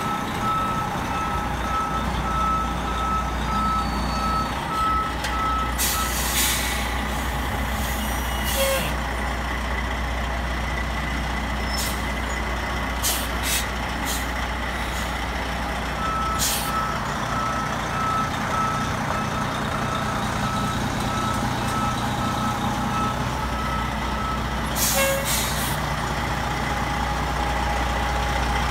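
Heavy truck engine running steadily while its reversing beeper sounds in two spells, the first ending about six seconds in and the second running from about sixteen to twenty-four seconds. Several short bursts of hissing noise break in, the loudest near the end.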